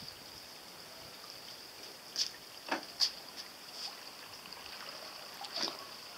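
Faint water sounds of a small toy foil kayak being towed on a string across a shallow stone pool, with a few short splashes about two to three seconds in and another near the end, over a steady high-pitched hiss.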